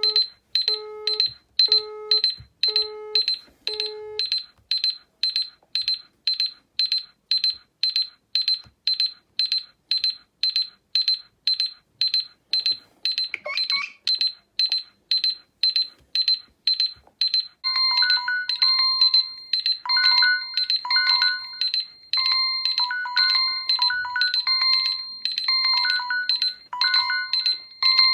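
Phone sounds layered over each other: an electronic alarm beeps rapidly and high-pitched, about three beeps a second. For the first four seconds four lower beeps sound about a second apart, like a call-progress tone. About eighteen seconds in, a repeating melodic ringtone joins.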